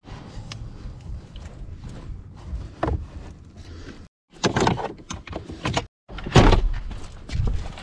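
Clicks, knocks and thuds in three short clips cut together; the loudest thud comes about six and a half seconds in.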